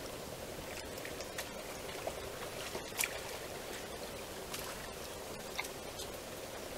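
Water running and trickling steadily, with a few faint clicks.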